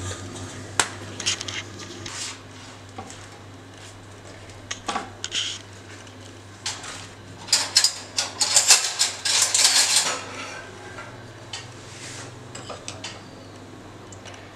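Dishes and a metal spoon clinking and scraping as food is plated: scattered single knocks at first, then a busy stretch of clatter about halfway through.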